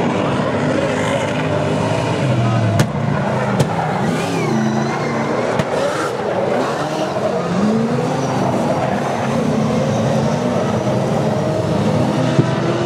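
Several speedway saloon race cars running hard in a race, their engines' revs rising and falling as they lap. There are a couple of short sharp clicks about three seconds in.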